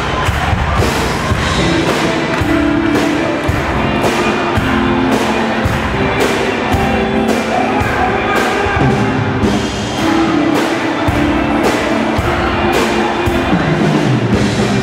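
Upbeat music with a steady, driving drum beat.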